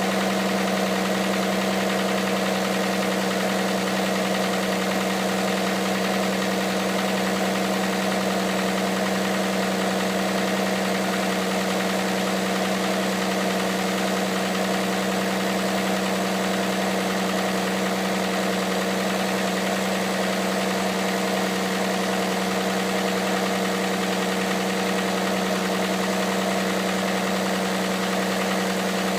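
Hyundai Santa Fe CM's G6EA 2.7-litre V6 idling steadily from cold, with the knock the owner attributes to the engine running cold.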